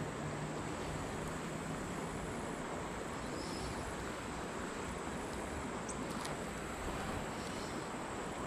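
Steady outdoor background hiss with a faint, steady high-pitched insect drone. A faint bird chirp comes in about three and a half seconds in, and a couple of small clicks about six seconds in.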